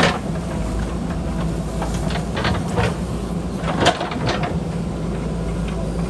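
JCB backhoe loader's diesel engine running steadily as the bucket cuts into an earth bank, with a few sharp scrapes and knocks from the bucket and soil. The loudest knock comes just under four seconds in.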